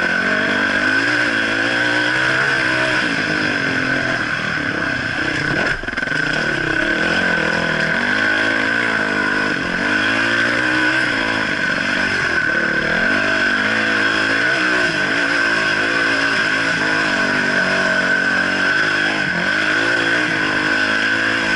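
Dirt bike engine revving up and down on a climb up a rutted dirt trail, its pitch rising and falling with the throttle, heard close up from a helmet-mounted camera. There is a brief drop in loudness about six seconds in.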